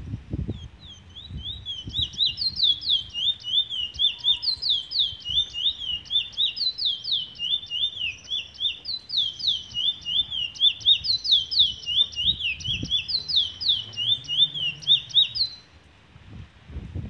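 A caged Trinidad bullfinch (chestnut-bellied seed finch) singing a long, fast run of short, high, down-slurred notes, several a second. The song stops about a second before the end, leaving a low wind rumble.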